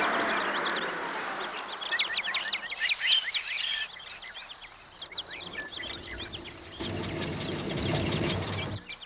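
Many short bird chirps, quick high notes bunched together, over a rushing noise that fades away in the first second or two; a low rumble comes up near the end.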